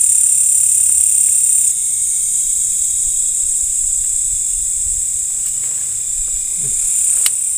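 Night insect chorus of crickets, a steady high-pitched shrill that drops slightly in level about two seconds in, with a sharp click near the end.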